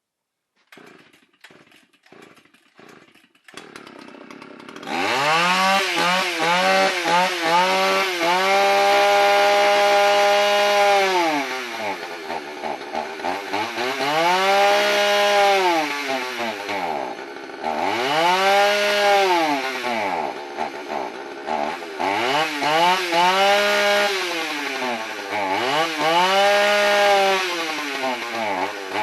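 Two-stroke chainsaw engine restarting after a few tugs on the recoil starter, catching about five seconds in. It is then revved up and down over and over, held at high revs for a second or two each time, as it runs on the carb cleaner sprayed into it.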